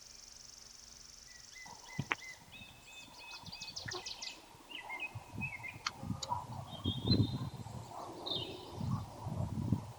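Small birds chirping and trilling in short calls, with gusts of wind rumbling on the microphone in uneven surges from about halfway on.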